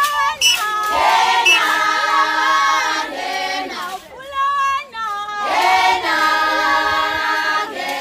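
A group of voices singing together in chorus, without instruments, in long held phrases with short breaks between them.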